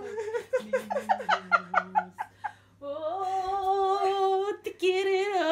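A woman singing a casual, hummed melody: a quick run of notes, then a long held note about three seconds in, and another wavering held note near the end.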